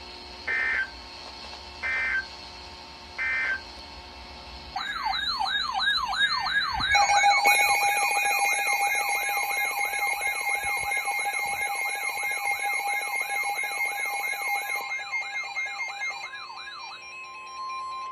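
Emergency Alert System tones over a broadcast alert: three short data bursts marking the end of the previous message, then a warbling siren-like alert tone from about five seconds in. About seven seconds in a steady two-tone attention signal joins it, and near the end a single steady tone is left before the next warning is read.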